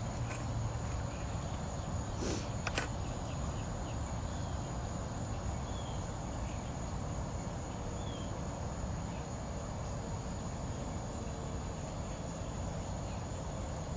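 Outdoor ambience: a steady high-pitched insect drone over a low hum, with two short clicks a little over two seconds in.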